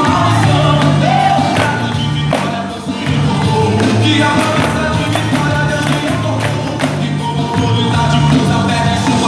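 A gospel song with singing and a steady bass, with a group of pandeiros (Brazilian jingled frame drums) played together in rhythm over it.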